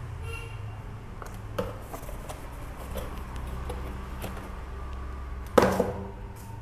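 Handling of a cardboard shipping box: a few light taps and rustles, then one sharp knock about five and a half seconds in, over a steady low hum.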